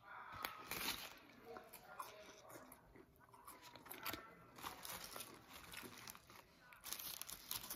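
Soft crunches, taps and rustles of a fast-food burger being put together by hand: fries piled onto the patty and the bun pressed down on top, with a louder rustle near the end.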